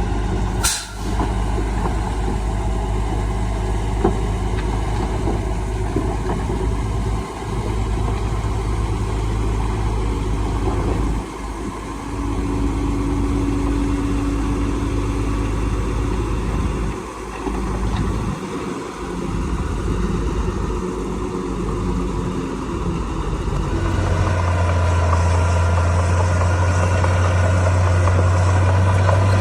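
Heavy diesel engine of earthmoving machinery running steadily, with a sharp click about a second in. A deeper, louder engine note sets in near the end.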